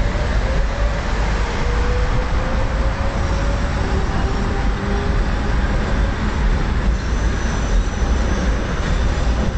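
A tram passing along the street below amid steady traffic noise, with a heavy low rumble throughout and a faint whine that slowly falls in pitch over the first few seconds.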